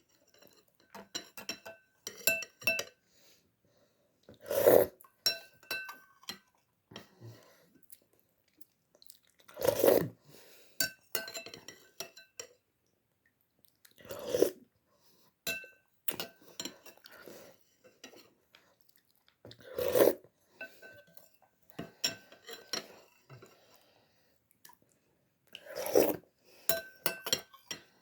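Person eating instant vermicelli noodles: a utensil clinks against a dish and there is chewing. About every five to six seconds a louder mouth sound comes, five times in all.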